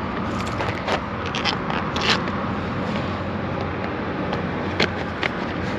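Milwaukee M18 drain snake running, its new steel cable spinning and scraping against pavement, with scattered sharp clicks and scrapes over a steady motor hum.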